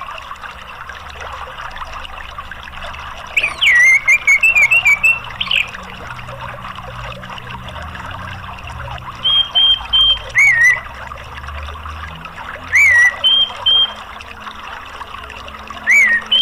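Orange-headed thrush song: a quick run of warbling whistled notes about three seconds in, then short high notes and falling slurs at intervals. Under it is a steady rush of running water.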